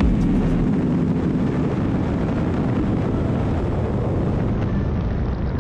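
Motorcycle riding at speed: a steady engine drone mixed with wind rush, dulling slightly near the end.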